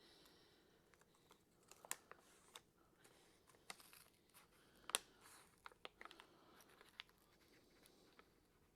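Faint, scattered light clicks and rustling of small engine parts being handled, such as connecting rod bearing shells being rolled into place. The sharpest click comes about five seconds in.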